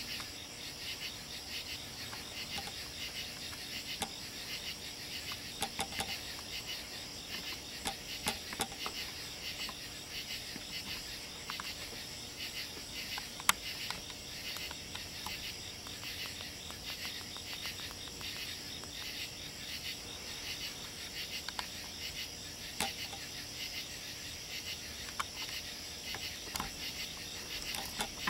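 Steady high-pitched chorus of night insects such as crickets, trilling without a break. It is crossed by a few short clicks, the sharpest about halfway through.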